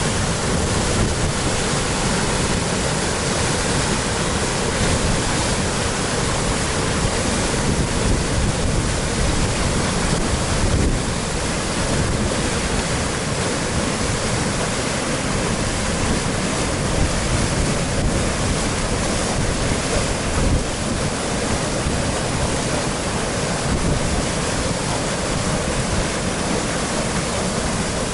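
Waterfall on a river in spring flood, a steady loud rush of falling water, with some wind buffeting on the microphone.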